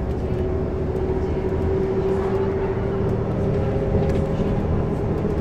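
Bus running on the road, heard from inside the saloon: steady engine and drivetrain drone over road rumble, with a whine that edges slightly up in pitch as the bus gathers speed.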